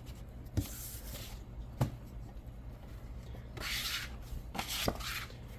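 Paper scratch-off lottery tickets being handled: light rustling and scraping with a few soft taps, the longest rustles about three and a half and four and a half seconds in.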